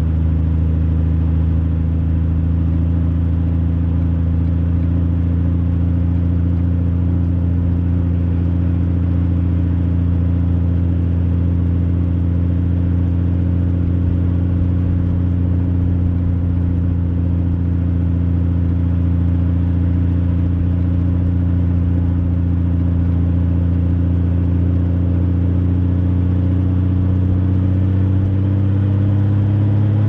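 Honda Valkyrie F6C's 1520 cc flat-six engine running steadily under light throttle at a slow cruise, heard close from the handlebars. Its pitch rises slowly over the last few seconds as the bike speeds up.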